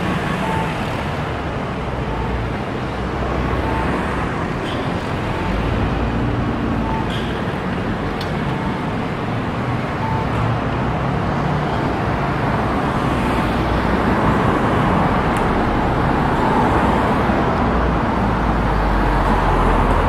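Randen streetcar-type tram standing at a platform, its running gear humming under steady road traffic noise. A short beep repeats about every three-quarters of a second through the first half. The rumble grows louder over the last few seconds.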